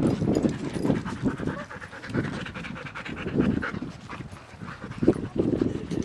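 A dog panting in quick, repeated breaths.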